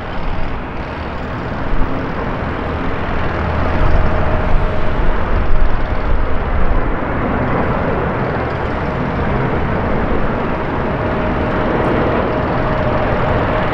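Jet engine roar of an Airbus A350-900 airliner on final approach, its Rolls-Royce Trent XWB engines at low approach power, with a faint steady whine coming in after about three seconds.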